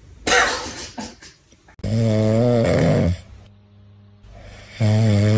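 Dog snoring loudly while asleep: two long, deep snores about three seconds apart, the second starting near the end. A short burst of noise comes at the very start, before the snoring.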